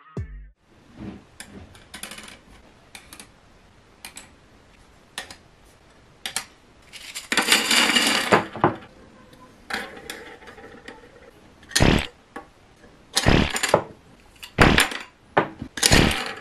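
Hard 3D-printed PLA plastic parts handled on a wooden table: scattered clicks and knocks as barrel staves and discs are set down and fitted into a round base. There is a longer clattering rattle about seven to eight seconds in, and a few louder knocks near the end.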